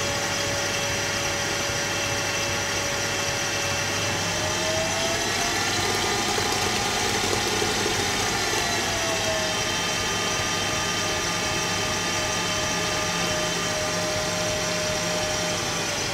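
Electric stand mixer running steadily, its flat beater creaming butter and sugar in a glass bowl. The motor's whine rises slightly in pitch about five seconds in and eases back down a few seconds later.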